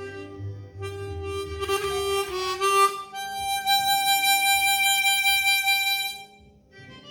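Easttop EAP Performer 16 chromatic harmonica with solid brass, nickel-plated Hohner 280C covers playing a melodic phrase. The phrase ends on one long held note that fades out about six seconds in.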